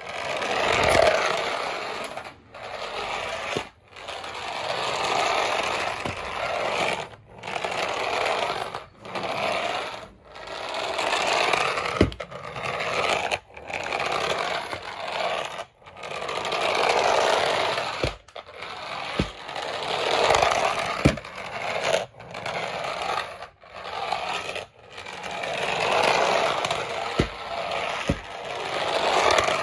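Toy remote-control car's small electric drive motor and gears whirring as it is driven forward and back across a stone floor. The motor runs in bursts of a second or two, with short stops between them, and a few knocks.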